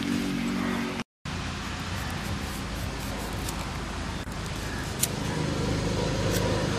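A steady low mechanical hum, like a running motor, over background noise. The sound drops out completely for a moment about a second in.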